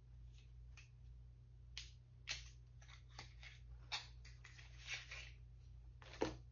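Faint irregular clicks and rustles of a small lip liner tube and its plastic packaging being handled and turned over, with a sharper click just after six seconds in.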